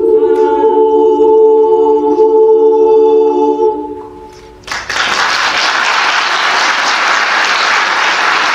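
Mixed choir holding a sustained final chord that dies away after about four seconds. Audience applause then breaks out suddenly and continues.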